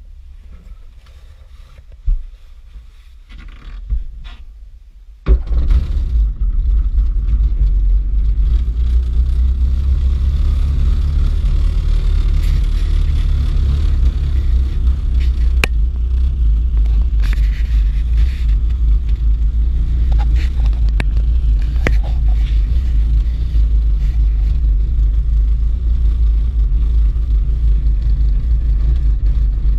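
Mosquito turbine helicopter running: a loud, steady low rumble that starts abruptly about five seconds in, after a few faint knocks.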